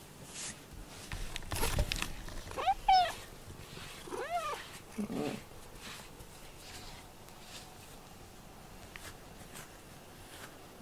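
A cat meows three times in quick succession, each call rising then falling in pitch, the third one lower. A short rustling noise comes just before the first meow.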